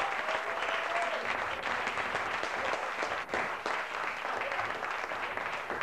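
Theatre audience applauding steadily, many hands clapping at once, with a brief faint voice near the start.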